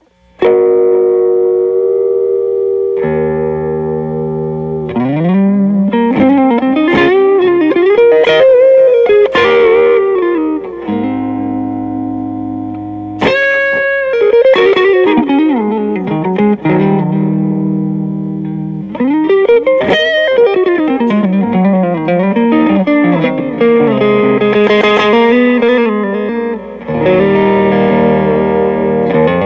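Solo improvisation in E major on an unaccompanied Fender Stratocaster electric guitar. It opens with ringing sustained chords, then moves into melodic runs with string bends and vibrato, which alternate with held chords.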